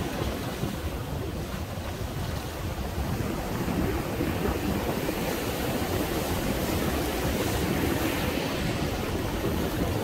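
Ocean surf breaking and washing up a sandy channel between rocks, a steady rush that swells a little about halfway through, with wind rumbling on the microphone.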